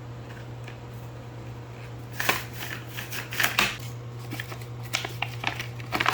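Packaging being handled and opened by hand: irregular crinkles and sharp clicks that start about two seconds in, over a steady low hum.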